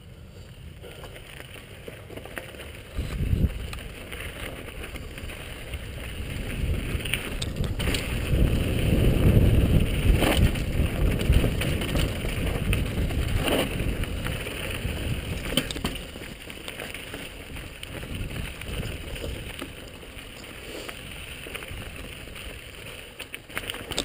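Downhill mountain bike rolling fast over a rocky gravel trail: a steady rumble of tyres and wind buffeting the helmet-mounted microphone, loudest about eight to twelve seconds in, with a few sharp knocks and rattles from the bike over rocks.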